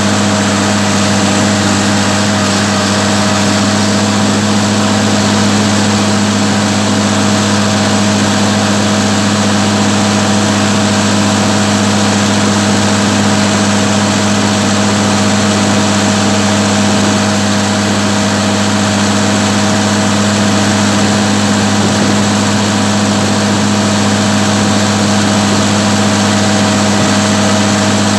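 Massey Ferguson 399 tractor's six-cylinder diesel engine running steadily while driving, heard close up from the driver's seat: a loud, even drone with no change in engine speed.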